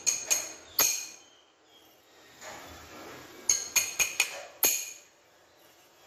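Large steel wrench used as a hammer, striking a steel punch set on the bearing in a car A/C compressor pulley: three sharp metallic clinks with a brief ring in the first second, then five more in quick succession starting about three and a half seconds in.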